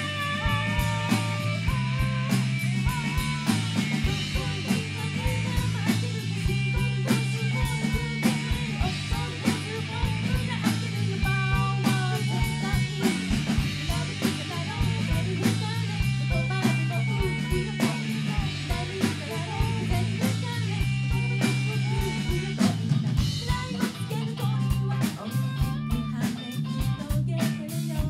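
A rock band playing live: drum kit, electric bass and electric guitar, with a woman singing.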